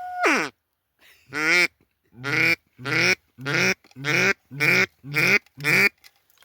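Hand-blown waterfowl call sounded at full volume: a held note that breaks downward, then a run of eight loud, quick quacking notes, nearly two a second.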